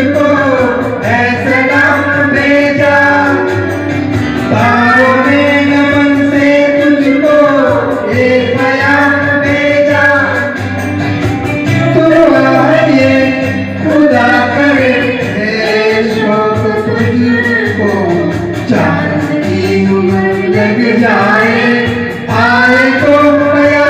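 A man and a woman singing a song into microphones, their voices taking turns and joining, with long held notes that glide in pitch.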